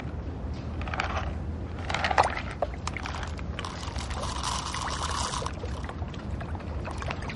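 Contents of a small plastic box pouring out over water for a couple of seconds, about halfway through, over a steady low waterside rumble with scattered handling clicks and knocks.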